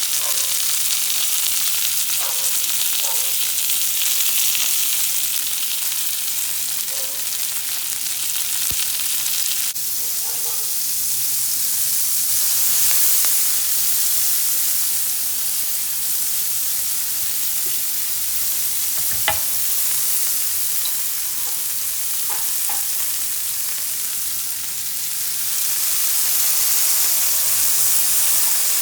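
Cauliflower steak frying in a pan, a steady sizzle just after it has been flipped. A few light clicks, and one sharp click about two-thirds through.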